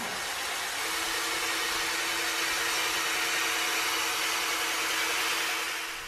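A shop vacuum running steadily: an even rush of air over a low motor hum, cutting off sharply at the end.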